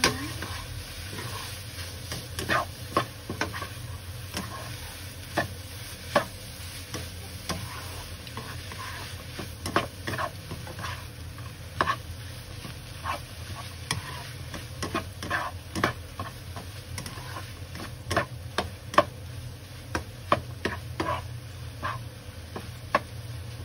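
A spatula stirring and tossing fermented pork and egg in a wok, with irregular sharp knocks and scrapes of the spatula against the pan, a few a second, over steady sizzling and a low hum.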